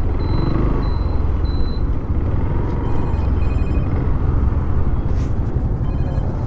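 Steady low rumble of wind on the microphone and engine noise from a motorcycle being ridden. About three seconds in, and again briefly near the end, a high electronic chiming from the handlebar-mounted phone: the app's alert for a new ride request.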